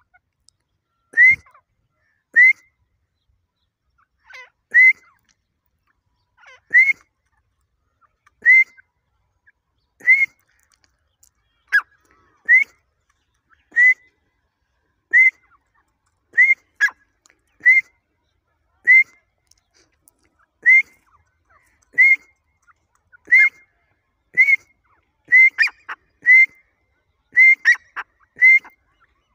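Grey francolin (teetar) giving a long series of short, sharp whistled calls, about one every second or so. Near the end the calls come faster and in quick pairs.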